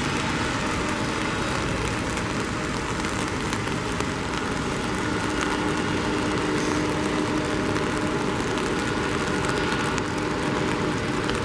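Boeing 767-300ER's jet engines running as the airliner rolls out on a wet runway after touchdown: a steady, even noise with a faint low whine that strengthens about four seconds in.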